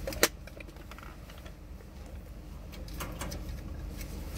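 Handling noises inside a car: one sharp click about a quarter second in, then a few faint clicks and rustles over a low steady rumble.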